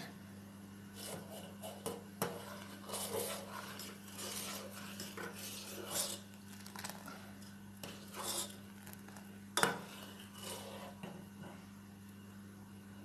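Steel ladle stirring thick, simmering milk and rice for kheer in a stainless steel pot, scraping and clinking against the bottom and sides at irregular intervals, with a sharper clink about nine and a half seconds in. The kheer is kept moving so the thickening milk does not catch on the bottom.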